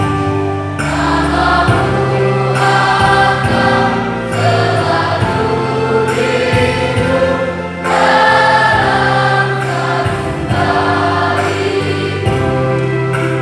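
A choir of junior high school students singing together in long held notes, over sustained low notes from an accompaniment.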